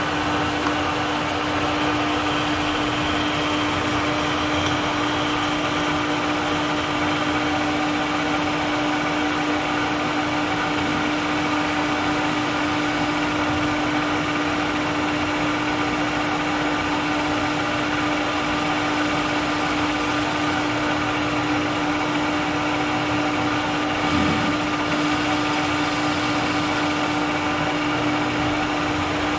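Conventional metal lathe running steadily, its spindle and chuck turning a bushing blank as it is machined, with a constant hum.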